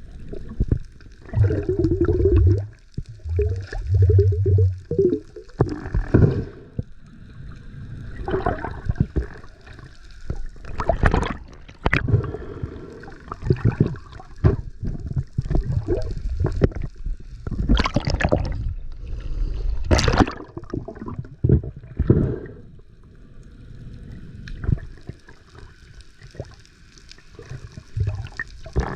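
Water sloshing and gurgling in uneven surges, with several sharper splashes or bubble bursts.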